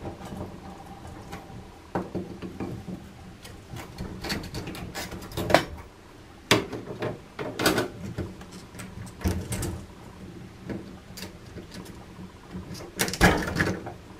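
A TOTO THY582N plastic cartridge being worked loose by hand and pulled out of a TKJ31UF3 single-lever mixer tap body: irregular plastic scrapes, clicks and knocks, loudest in a cluster near the end as the cartridge comes free.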